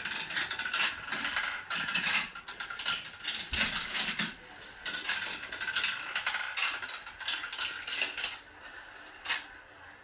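Marbles rolling and clattering down a homemade marble run, a busy rattle of clicks that dies away about eight and a half seconds in, with one last click about a second later.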